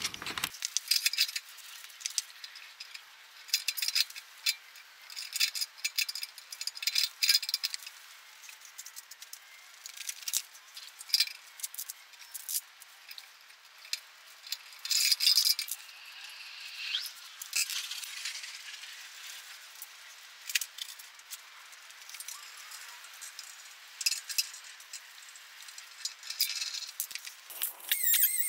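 Irregular clinks, clicks and rattles of a ratchet, wrenches and steel hardware as the jack-shaft pulleys and pillow-block bearings are bolted into the base of a Delta 14-inch bandsaw. The clatter is thin and high, with no low end.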